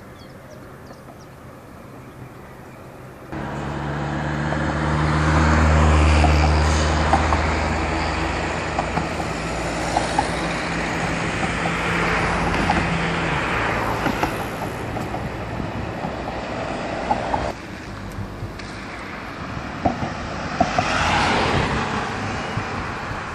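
Road traffic driving across a bridge: vehicles passing close by with a low engine hum and tyre noise that swell and fade, the loudest pass about six seconds in and another near the end, with several short clacks along the way.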